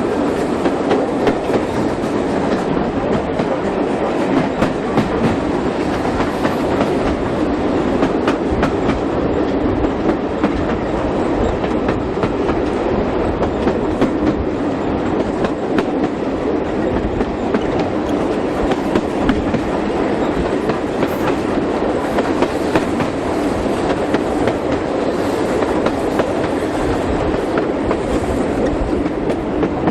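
Heritage steam-hauled passenger train under way: the steady rumble of a carriage running on the track, with frequent clicks of the wheels over rail joints.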